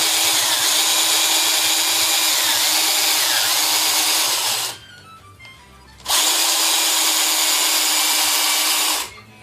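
Electric drill spinning a typewriter's rubber platen against a sanding block: a steady motor hum under a loud even hiss, in two runs. The first stops about four and a half seconds in, and the second starts about a second and a half later and stops near the end. The sanding is taking out deep grooves worn into the platen.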